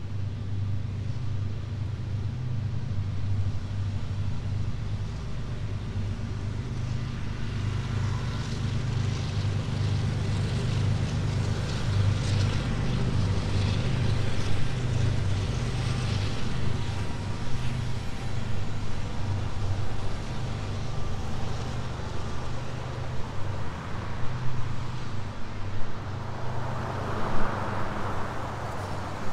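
Downtown street ambience: a steady low hum of vehicle engines and road traffic, with traffic noise swelling near the end.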